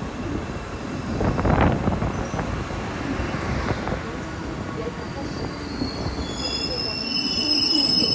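Train running on rails with a continuous rumble. High-pitched wheel squeal sets in about halfway through and grows louder near the end.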